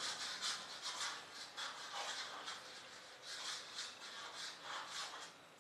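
Faint scratching of a writing tool in short, irregular strokes as something is written or drawn.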